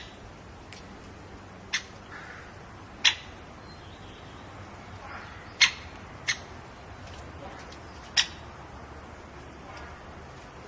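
A bird giving short, sharp call notes, about six of them, spaced one to two seconds apart, over a faint steady hiss.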